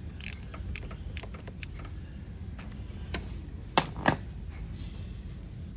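Small metal tools clinking and clicking during the motorcycle drain-plug work: a series of light taps, then two sharp clanks about four seconds in, a third of a second apart.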